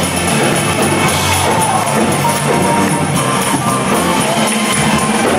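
High school choir singing an upbeat Caribbean-style gospel praise song with keyboard accompaniment.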